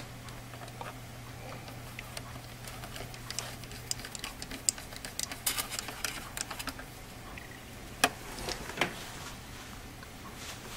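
Small precision screwdriver turning a screw into a laptop's plastic bottom cover: a run of light clicks and ticks from the bit in the screw head for a few seconds, then a few sharper taps about eight seconds in.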